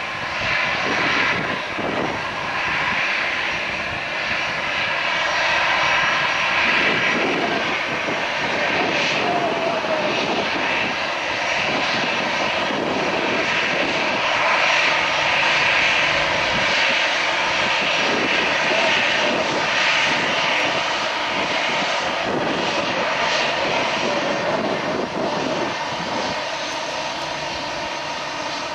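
Airbus A320-211's CFM56-5A turbofan engines running at taxi power as the airliner taxis past: a steady rushing jet noise with a high whine layered on top.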